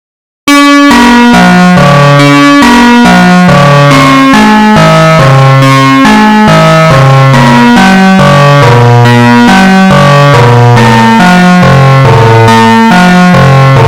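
Loud synthesizer music starting abruptly about half a second in, with a stepping bass line and rapid keyboard notes, played at near full volume.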